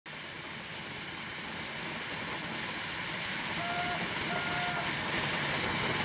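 J & F Howard 'Farmers Engine' steam ploughing engine at work, a steady noisy rush that fades in from silence and grows louder. Two short, faint high tones sound a little past halfway.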